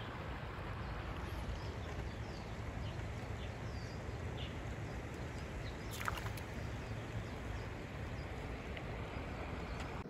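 Steady rushing outdoor noise at a rocky creek, with faint scattered bird chirps and one short sharp chirp about six seconds in.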